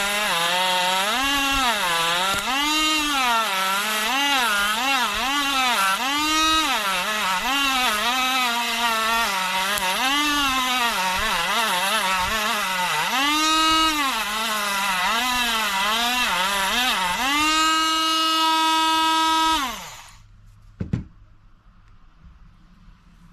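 DuroFort 8V cordless rotary tool (die grinder) running at high speed, its whine dipping and rising over and over as the bit is pressed into the work. Near the end it runs freely at a steady pitch, is switched off and spins down, followed by a single click.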